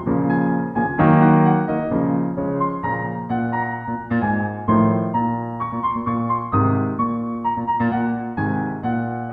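Background music: piano playing a series of chords, about one to two a second.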